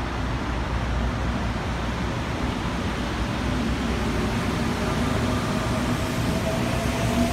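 Seoul Subway Line 4 electric commuter trains pulling out of the station: a steady rumble of wheels on rails, with a traction-motor whine that rises slowly in pitch from about halfway through as the train accelerates.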